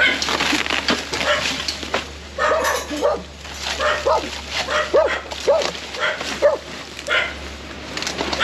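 Small dog barking in a quick run of about ten short barks, starting about two and a half seconds in, with scraping and knocking in the debris at the start.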